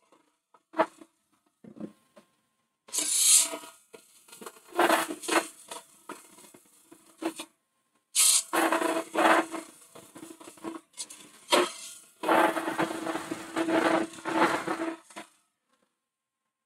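Hollowing tool cutting inside a spinning holm oak hollow form on a wood lathe: a series of rough scraping cuts, some lasting a couple of seconds, with short pauses between them and a steady low hum under each cut. It starts with a few short taps, and the cutting stops about a second before the end.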